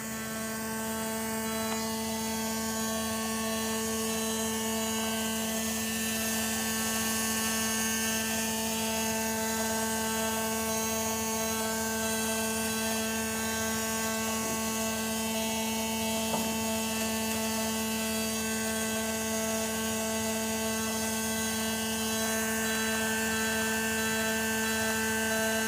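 Steady electrical buzz from the front of a 1995 Porsche 993, a constant hum at one pitch with many overtones that swells over the first couple of seconds and then holds even. The owner asks whether it is the fuel pump.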